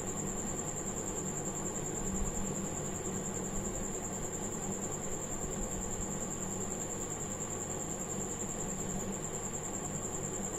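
Steady background noise: a low hum and even hiss with a thin high-pitched whine, unchanging and without distinct taps.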